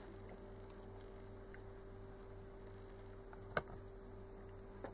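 Faint steady electrical hum, with one sharp click about three and a half seconds in and a few light ticks near the end: metal tweezers tapping the engine control unit's circuit board and housing while a thin wire is bent into shape.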